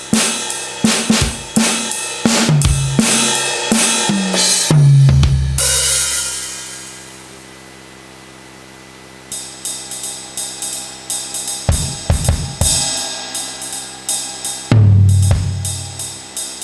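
Carlsbro OKTO A electronic percussion pad playing sampled drum-kit sounds: a run of drum hits with low tom thuds stepping down in pitch, ending on a cymbal crash that rings and fades out. After a short pause, another kit's quick hits start, with a big crash and low drum hit about fifteen seconds in.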